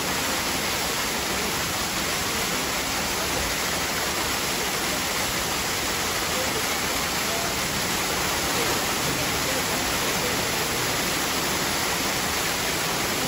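Steady rush of water running in a polar bear pool, an even, unbroken noise.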